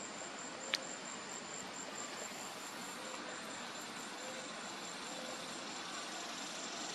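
Insects trilling steadily in the background, an even, rapid, high-pitched pulse, with one sharp click less than a second in.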